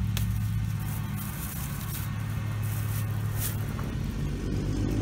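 A steady low droning hum, with a few faint clicks and rustles as a machete is handled and drawn from its sheath.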